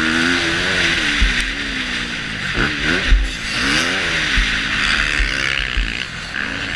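KTM 250 SX-F four-stroke single-cylinder motocross engine revving hard, its pitch climbing and dropping several times as the throttle is opened and shut along the track. Heavy wind noise on the microphone and a few low thumps run alongside.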